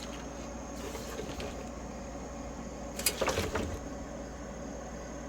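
A brief rattle and clatter of dash trim and vent ducting being worked loose, about three seconds in, over a steady background hum.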